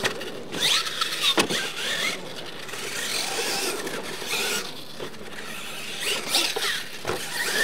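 Radio-controlled monster truck's electric motor whining up and down in pitch as the throttle is worked, over the scrabble of its tyres churning loose dirt, with a couple of sharp knocks, one about a second and a half in and one near the end.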